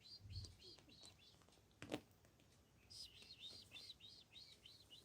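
Kitten making rapid, faint, high-pitched chirping squeaks, the sound it makes when content: one run at the start and a denser run of about four chirps a second from about three seconds in. A sharp click about two seconds in.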